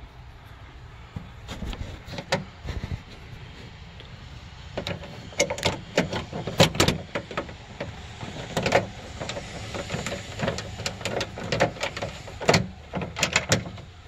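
Irregular sharp metallic clicks and taps from a 10 mm socket and bolts being turned by hand to start the bolts on a new trunk latch, coming thicker after about five seconds.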